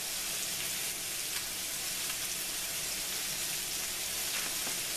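Sliced bell peppers, onions and jalapeños sizzling steadily in hot olive oil in a skillet, with a few light pops.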